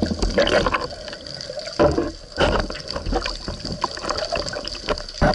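Water sloshing and gurgling around a camera housing just under the surface, in uneven bursts, with louder splashes about two seconds in and again near the end.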